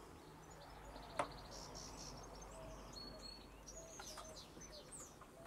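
Small birds chirping faintly, with a quick high trill early on and several short high notes that fall in pitch. A single light tap about a second in.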